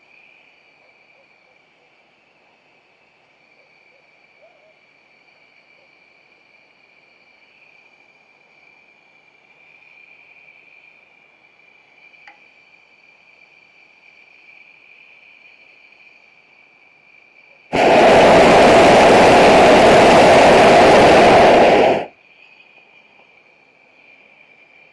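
Hot air balloon's propane burner firing one blast of about four seconds that starts and stops abruptly, loud against a faint steady high-pitched whine.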